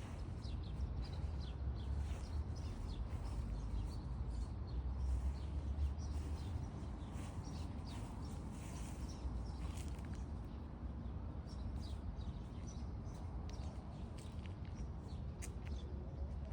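Small birds chirping on and off over a steady low rumble.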